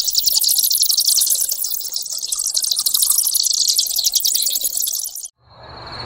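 A dense, high-pitched buzz of insects, pulsing rapidly and steadily, which cuts off abruptly about five seconds in. Near the end, after a moment's silence, a new sound begins with a low hum and quick rising chirps.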